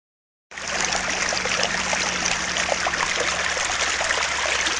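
Sound effect for a channel's logo intro: a steady, dense hiss full of fine crackles, with a faint low hum beneath, starting abruptly about half a second in.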